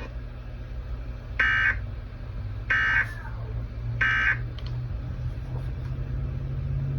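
Emergency Alert System end-of-message (EOM) SAME data bursts: three short, harsh digital warbles about 1.4 s apart, marking the end of the warning, over a steady low hum.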